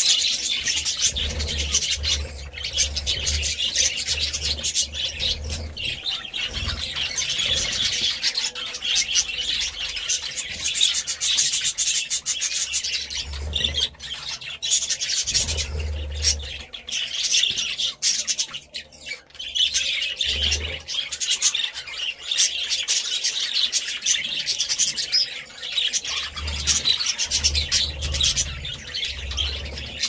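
A flock of budgerigars chattering and chirping nonstop, many birds at once, in rapid overlapping twitters. A low rumble comes and goes several times underneath.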